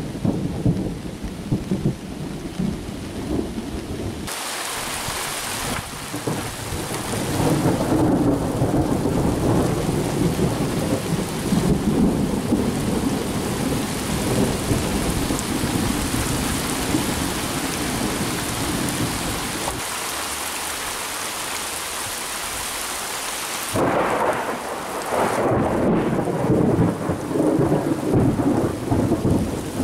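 Thunder rumbling in long rolls over steadily falling rain during a thunderstorm.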